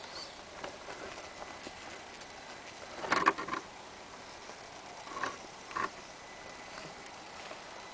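HPI Crawler King RC rock crawler knocking and scraping against rock as it climbs and tips on a boulder. There is a loud clatter about three seconds in, then two shorter knocks later on.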